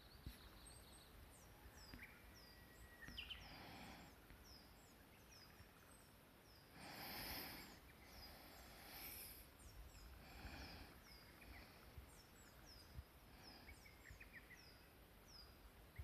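Faint high-pitched bird calls: a long run of short falling notes, two or three a second, over quiet marsh ambience. Two soft, brief whooshes of noise come midway.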